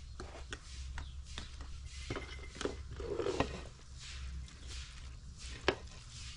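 A spoon clicking and scraping against a glass jar and a steel bowl as dried herbs and rice are spooned into a cooking pot: a run of light irregular clicks, with a sharper knock near the end.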